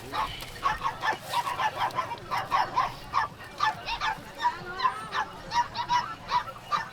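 Poultry calling: many short honking calls, a few each second, overlapping one another.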